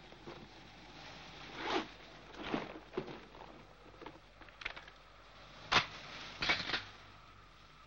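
Stiff paper wrapping rustling and crinkling in several bursts as a gun is unwrapped. Then a sharp click and a quick run of clicks as the gun's parts are handled.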